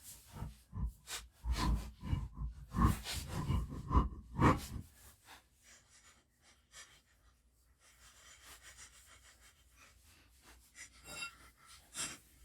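A run of knocks and metallic clatter for about five seconds, with a few brief ringing tones, then quieter handling with scattered clicks near the end: tools and parts being handled while the car's rear wheel is refitted.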